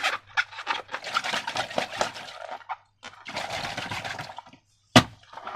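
Slime squelching and crackling as it is squished and squeezed, a dense run of small wet pops in two stretches. A single sharp click comes near the end.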